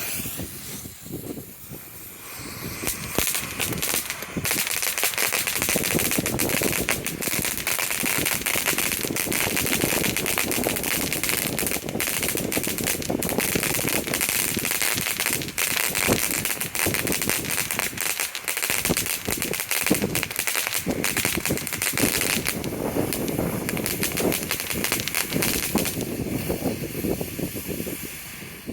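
Two Shogun 'That's Crazy' fountain fireworks burning together: a dense spraying hiss full of rapid crackling. It builds up over the first few seconds and dies away near the end.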